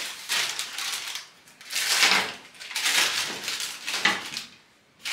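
Knife sawing through the edge of a chilled wafer-sheet cake layered with chocolate and walnut, the crisp wafer crunching with each stroke; four or so back-and-forth strokes, each about a second long.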